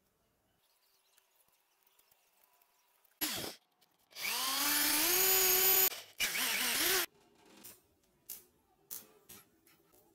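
Electric drill boring through steel, run in three trigger pulls. There is a short blip about three seconds in, then a run of nearly two seconds whose pitch rises as the motor comes up to speed, then a shorter run, followed by a few faint ticks.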